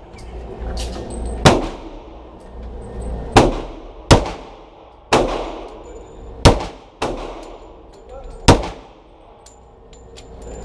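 Seven pistol shots fired at an irregular pace, each a sharp crack followed by a short echo in an indoor shooting range.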